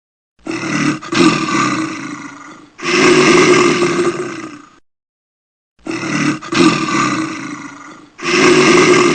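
A large animal's loud, deep calls, about four in a row, each lasting around two seconds, with abrupt dead-silent gaps between some of them.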